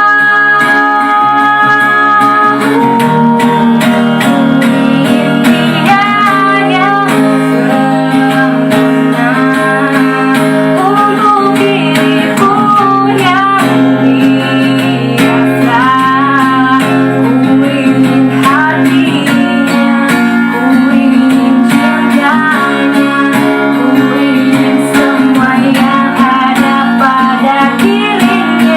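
Music: a voice singing a wavering, sliding melody over steady guitar accompaniment.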